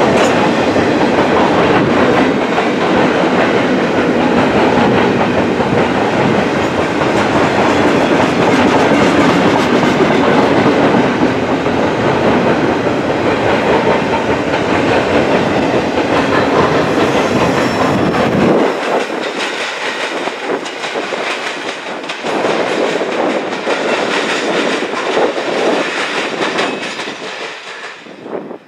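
Empty double-stack intermodal well cars of a BNSF freight train rolling past close by: a loud, steady rumble with a fine clatter of wheels on rail. About two-thirds of the way in, the deep rumble cuts off abruptly, leaving a thinner rolling sound that fades near the end.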